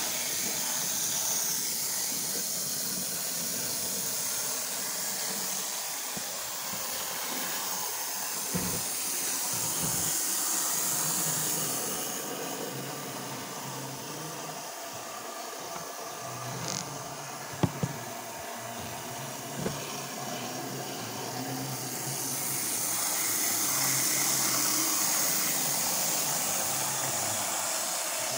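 Steady high-pitched whir and hiss of a T gauge model train's tiny motors running on the layout, louder for the first dozen seconds and again near the end, with a few faint clicks.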